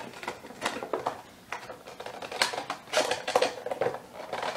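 Cardboard box and its plastic window insert being handled and slid apart: a run of small clicks, taps and papery rustles, busiest about halfway through.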